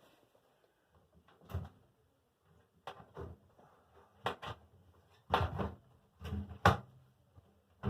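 Irregular knocks, clunks and rubbing from hands working a Samsung front-load washer's rubber door seal over the lip of the cabinet's front opening, with the loudest knocks about five and a half and six and a half seconds in.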